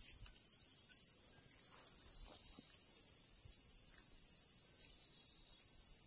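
A steady, high-pitched insect chorus, an even unbroken buzz.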